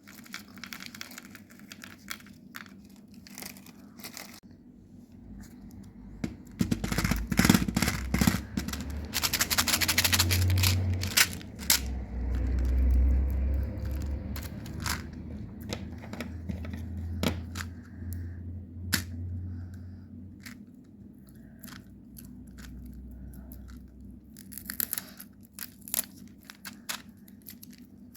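Chocolate wrappers being torn open and crinkled up close, with scattered sharp clicks and crackles. A dense stretch of tearing and crackling comes about a quarter of the way in, with a low rumble of handling under it.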